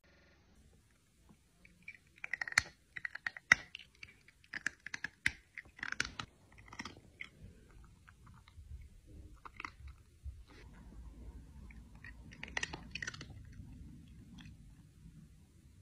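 A cat chewing something crunchy close to the microphone: a quick run of crunches for several seconds, then a few scattered ones, then a short second run near the end.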